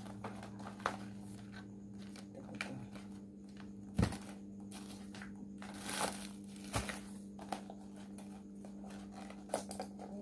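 White packaging wrapper crinkling and rustling as it is handled, with a few sharp knocks of a small cardboard phone box. A steady low hum runs underneath.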